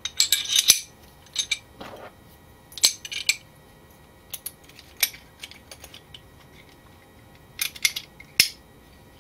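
Small metal clicks and clinks of a Kahr CW9 pistol's parts, its barrel, recoil spring and steel guide rod, being handled and fitted back together, a few at a time with pauses between, a cluster just after the start and another near the end.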